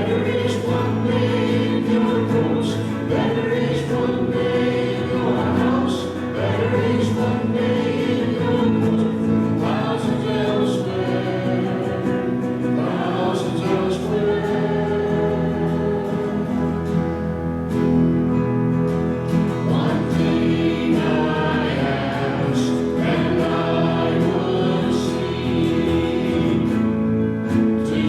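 A group of voices singing a hymn together, steady and sustained throughout.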